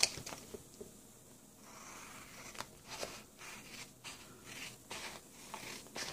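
Scissors snipping through a sheet of foil-laminated card paper: a string of separate short snips, most of them in the second half, with soft paper rustling between.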